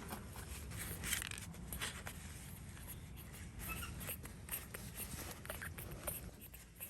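Soft, scattered rustling and light scraping from close handling, with a brief faint high squeak about three and a half seconds in.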